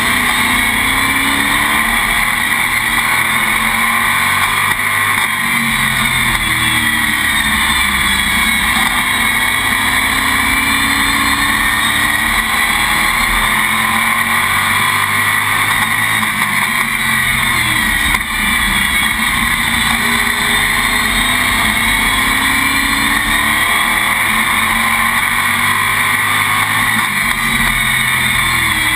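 A stock car's engine running hard during a race, heard from inside the cockpit. Its pitch falls and rises again in slow swells a few times.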